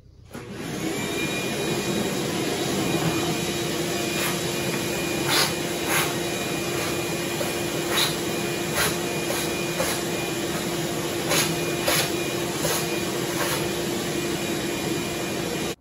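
Shop vacuum starting up and running steadily, a rush of air over a steady motor hum, sucking up the metal chips left from drilling bolt holes. Sharp clicks sound now and then through the rush.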